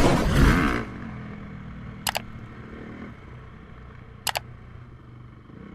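Motocross bike engine revving hard with wind rush for about the first second, then settling to a lower steady drone. Two sharp mouse-click sound effects from a subscribe-button animation, about two seconds apart.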